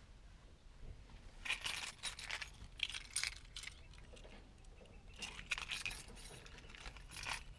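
Light metallic jingling and clinking in several short bursts.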